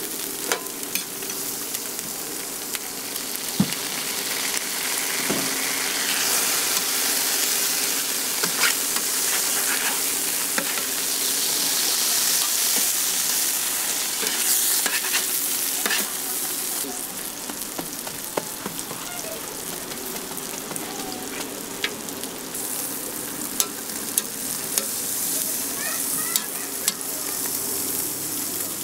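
Beef burger patties, eggs and sausages sizzling on a hot flat-top griddle, a steady frying hiss that swells somewhat in the middle. A metal spatula scrapes and clicks against the griddle plate now and then.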